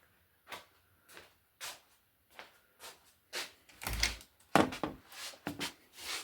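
Footsteps walking at about two steps a second, then a door being opened with several louder clunks and knocks, the loudest about four seconds in.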